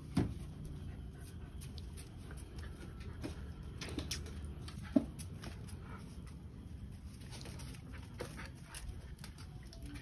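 Two puppies, a Labrador and a Rottweiler, scuffling and moving about on paving: scattered short taps and knocks, the sharpest about five seconds in, over a steady low background noise.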